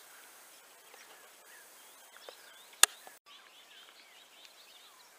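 Faint bird chirps and insect calls over quiet outdoor ambience, with one sharp knock a little under three seconds in.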